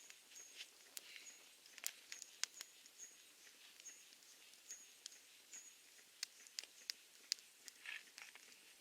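Wood campfire crackling: irregular sharp pops and snaps of burning wood, a few louder than the rest, with a faint high-pitched short tone repeating about every half second.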